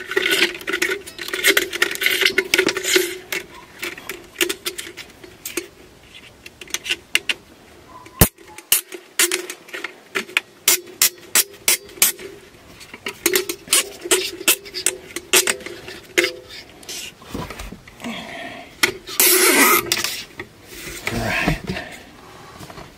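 Heavy-duty nylon cable ties being threaded and pulled tight through a fan's metal mounting bracket: rapid runs of ratchet clicks with handling noise. A single sharp click comes about eight seconds in, and the clicks are sparser after it.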